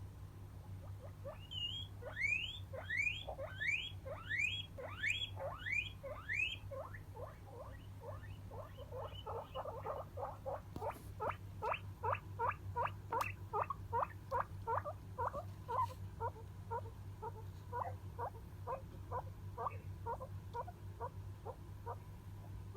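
Guinea pig wheeking. First comes a run of loud whistles that rise steeply in pitch, about two a second. Then a long series of shorter, lower squeaks follows, about three a second.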